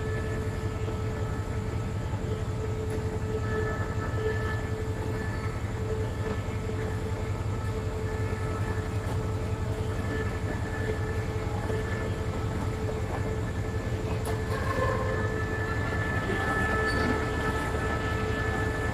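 A standing train's diesel engine idling steadily: a low, rapidly pulsing rumble with a steady whine over it.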